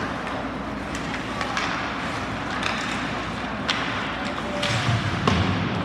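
Ice hockey game sounds in an arena: a steady hiss of skates on the ice and the crowd, broken by sharp clacks of sticks and puck several times, the loudest near the end.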